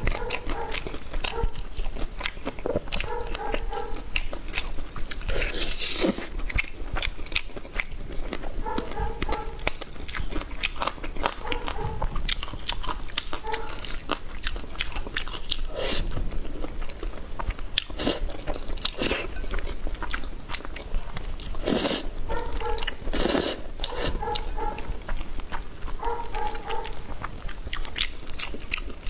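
Close-up eating sounds: steady, irregular biting and chewing of crunchy food, with a few louder crunches.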